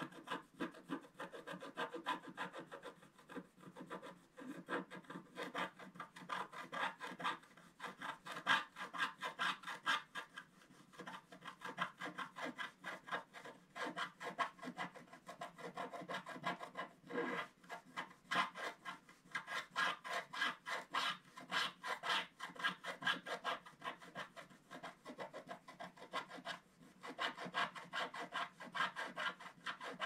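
Wooden stylus scratching the black coating off a scratch-art card in quick, repeated short strokes, pausing briefly now and then.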